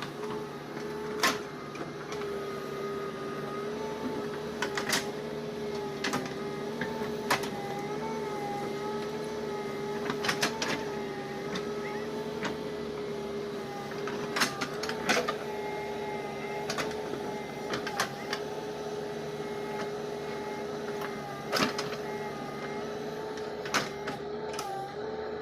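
A motor running with a steady whine that wavers slightly in pitch, punctuated by sharp clicks or knocks every one to four seconds.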